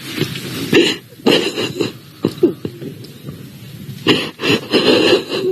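A woman crying: sniffles and choked, catching sobs in uneven bursts, the loudest near the end.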